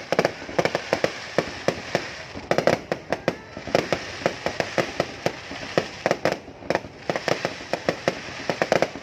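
Fireworks going off: rapid, irregular bangs and pops in dense clusters over a continuous crackle, with brief lulls between volleys.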